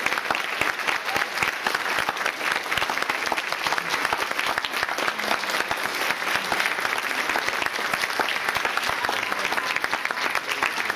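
Large audience applauding, with dense, steady clapping.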